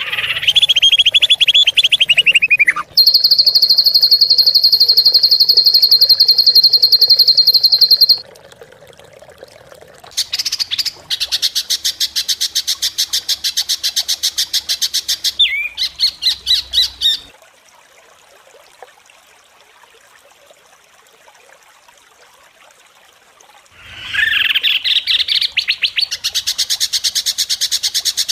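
Songbirds giving very fast, harsh, high-pitched trills and chattering, the 'tembakan kasar' calls of a bird-song tutor recording. An opening trill falls in pitch, a long steady trill follows, then rapid chatter, a pause of several seconds, and rapid trilling again near the end.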